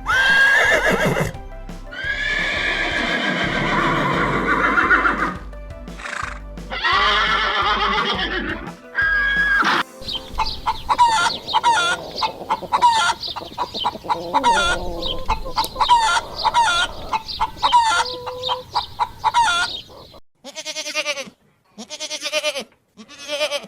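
Animal calls over background music: several long, wavering calls in the first half, then a long run of short, quickly repeated calls, and a few falling calls near the end.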